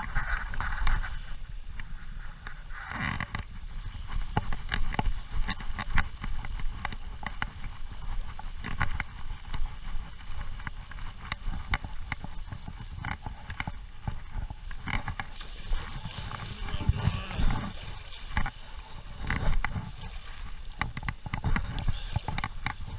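Low rumble of moving river water and wind on the microphone, with many irregular clicks and knocks. A faint, steady high whine runs from a few seconds in until about the middle.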